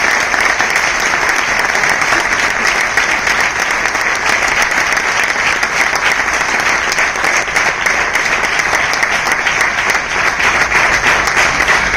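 Audience applauding, a dense, steady clapping from many hands that holds at the same level throughout.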